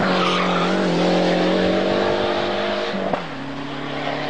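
Rally car engine running hard at steady high revs; about three seconds in there is a sharp crack and the engine note drops suddenly to a lower pitch.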